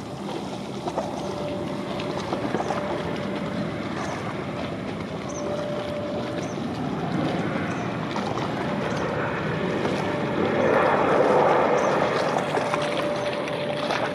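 Jet airliner engine noise, a Southwest Boeing 737 landing, a steady rush that slowly swells to its loudest near the end and then eases.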